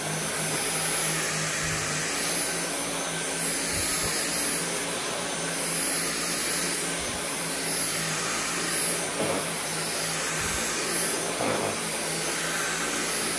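Dyson V8 cordless stick vacuum running steadily, a rush of airflow with a thin high whine from its motor.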